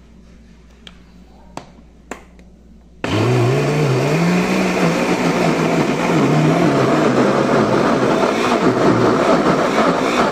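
A few light clicks, then about three seconds in a kitchen blender switches on and runs loudly. Its motor hum first rises in pitch, then wavers up and down as it churns a thick batter of eggs, tapioca starch and oil. The owner says this blender has very little power.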